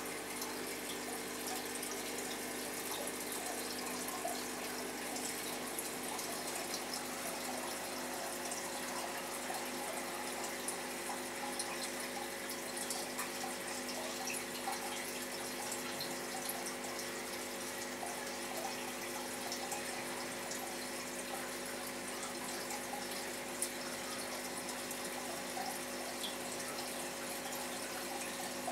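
Aquarium water bubbling and trickling, with a constant fizz of small air bubbles breaking, over a steady hum.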